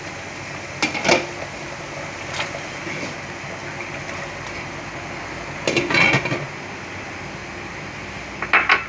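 Pots and utensils clattering in three short bursts, about a second in, around six seconds and near the end, over the steady hiss of a pot of water boiling on the stove.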